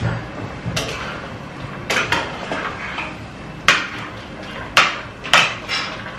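A metal spoon clinks and scrapes against a stainless steel stockpot as pieces of boiled fish are lifted out of the stock: about six sharp knocks, spaced irregularly, each ringing briefly.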